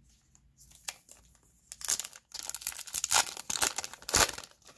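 Foil Yu-Gi-Oh booster pack crinkling and tearing as it is pulled open by hand, starting about two seconds in.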